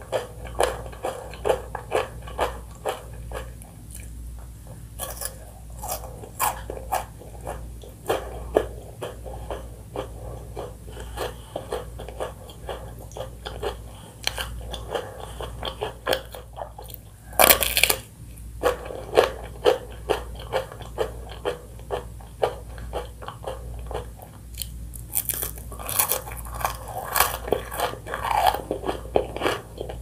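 Close-miked eating: repeated crisp bites and crunchy chewing of chocolate-coated treats, a chocolate bar and a wafer ice-cream cone. One especially loud crunching bite comes a little past halfway.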